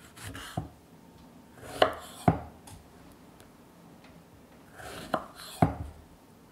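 Kitchen knife cutting strawberries on a wooden cutting board: soft slicing rustles, each pair of cuts ending in sharp taps of the blade on the board, twice, with the second pair near the end.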